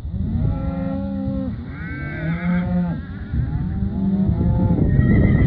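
Cows in a herd mooing: several long calls in a row, some overlapping, one of them higher-pitched near the middle.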